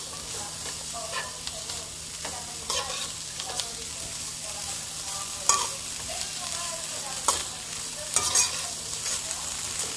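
Vegetables and bean sprouts sizzling in a hot wok while a slotted metal spatula stirs and tosses them, with scrapes and knocks of the spatula against the pan every second or so.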